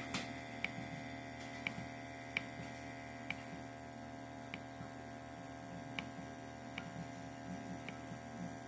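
Steady electrical hum with faint, sharp ticks scattered about once a second.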